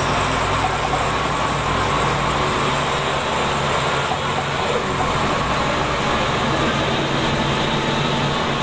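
Scania K93 bus under way, heard from inside the cabin: its rear-mounted Scania DS9 9-litre six-cylinder turbo diesel drones steadily with a faint whine, mixed with road and body noise.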